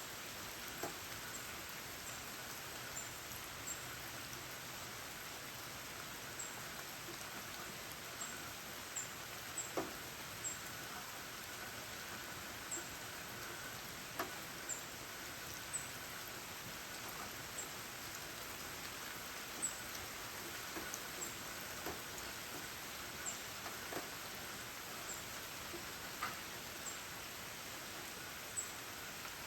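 Rain falling steadily, with sharp drips landing close by every few seconds and a string of very short, very high chirps about every second.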